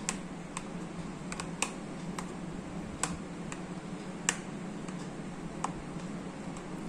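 A table knife cutting through set jelly in a plastic container, its blade clicking and tapping against the container's bottom: about a dozen scattered sharp clicks, loudest about three and four seconds in, over a low steady hum.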